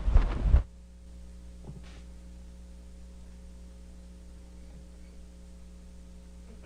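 Steady electrical mains hum from the band's amplified sound system, after a brief loud sound in the first half-second.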